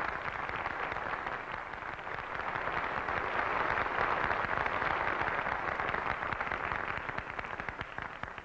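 Studio audience applauding, dying down near the end.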